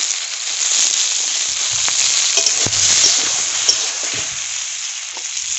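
Pointed gourd pieces sizzling in hot mustard oil in a metal wok, with a metal spatula scraping and clicking against the pan as they are stirred.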